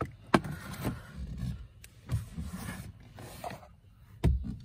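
Hard plastic dashboard parts being handled and pulled under the glovebox of a Honda Civic: a string of sharp clicks and knocks with rustling between, the loudest near the start and near the end.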